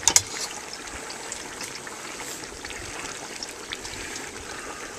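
Hot oil bubbling and sizzling steadily around a whole turkey in a turkey-fryer pot. Two sharp clicks right at the start.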